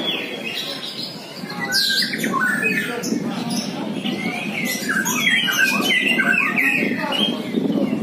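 Caged contest songbirds singing a fast, varied run of chirps and whistled phrases, busiest about five to seven seconds in, over the steady murmur of a crowd.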